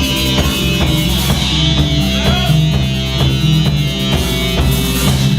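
Rock band playing live: electric guitar, bass and drum kit with a steady beat.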